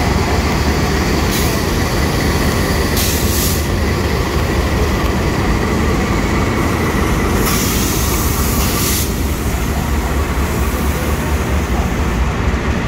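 CC 206 diesel-electric locomotive passing slowly at close range, its diesel engine running with a steady low drone, then the first passenger coach rolling past with wheel-on-rail noise. Several short bursts of hiss come and go over the top.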